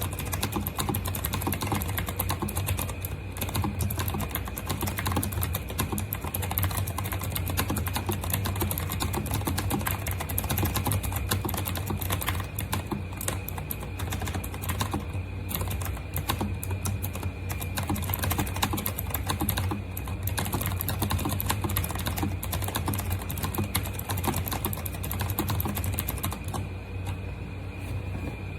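Continuous fast typing on an RK Royal Kludge S108 mechanical keyboard with clicky blue switches: a dense, unbroken stream of keystrokes, over a steady low hum.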